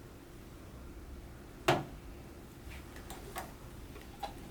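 Plastic clicks from fitting an artificial-nose (heat-and-moisture-exchanger) bacterial filter onto a ventilator's exhalation port: one sharp click a little under two seconds in, then four lighter ticks, over a faint steady hum.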